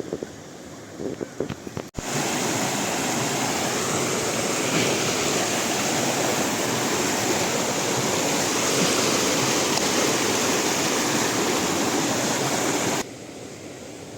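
Flowing river water, a loud steady rush that starts suddenly about two seconds in and cuts off shortly before the end. Before it there are scattered faint crackles.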